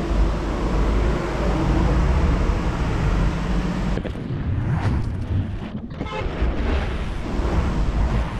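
Motor vehicle and road noise, a steady rumble with hiss. The sound changes abruptly about four seconds in.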